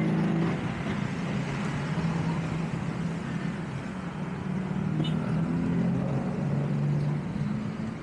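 A motor vehicle engine running close by, a steady low hum that rises and falls slightly in pitch, over general street traffic noise.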